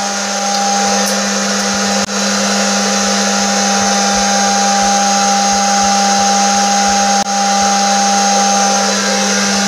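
Toy bubble machine's small electric motor and fan running with a steady hum, dipping briefly twice.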